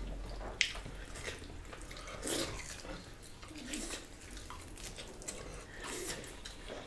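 Two people eating with their hands: soft wet chewing and lip smacks, with fingers working through rice and meat, and a sharp click about half a second in.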